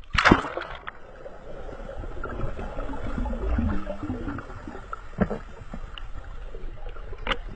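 A dog splashing into the sea about a third of a second in, followed by muffled water noise heard underwater while the dog swims down to the seabed, with a couple of faint clicks later on.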